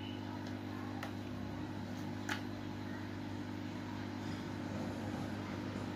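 Steady low electrical hum, with two faint clicks about one and two seconds in.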